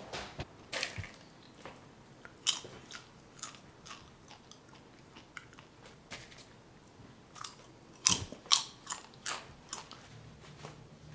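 A person chewing crunchy food: a run of irregular crisp crunches, a few a second, with the loudest ones about eight to nine seconds in.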